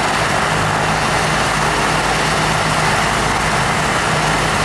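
Air ambulance helicopter running on the ground: a steady engine and rotor noise with a low, even hum underneath.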